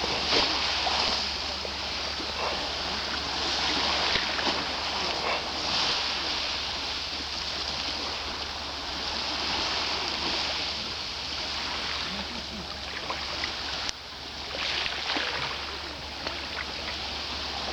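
Black Sea waves breaking and washing on the shore, the surf swelling and easing every few seconds. The sound drops out abruptly for a moment about fourteen seconds in, then the waves carry on.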